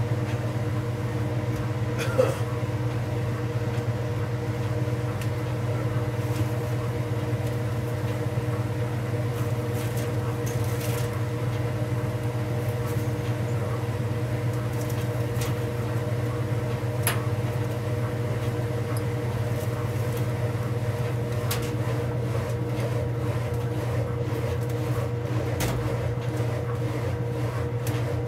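Whirlpool Supreme belt-drive top-loading washer in its spin, the basket and agitator turning together, with a steady motor and drive hum. A single light click about two seconds in.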